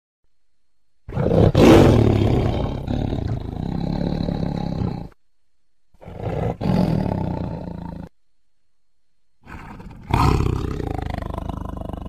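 Tiger roaring three times. The first and loudest roar starts about a second in, a shorter one comes about six seconds in, and a third starts near the end. The first two cut off suddenly into silence.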